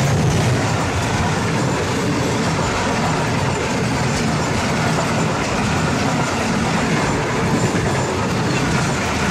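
Pakistan Railways passenger coaches passing close by at speed: a loud, steady noise of wheels running on the rails.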